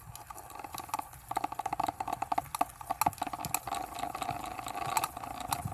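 Small battery-powered makeup-brush washing machine running: a steady motor whine with irregular clicking and rattling, the whine growing stronger about a second in.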